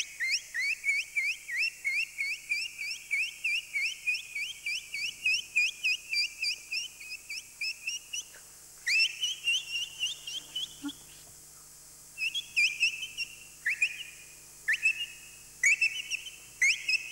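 A man imitating ducklings with his mouth: rapid, high, whistled peeps, about four a second for some eight seconds. After a short pause come a few longer peeps and then short clusters of peeps.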